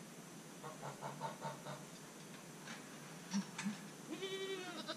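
A goat gives one long bleat near the end. Earlier, about a second in, a hen clucks in a quick run of short calls. Two sharp knocks come just before the bleat.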